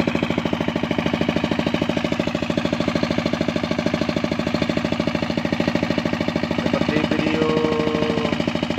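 Brick-making machine running with a rapid, even knocking rhythm. About seven seconds in, a short steady tone sounds over it.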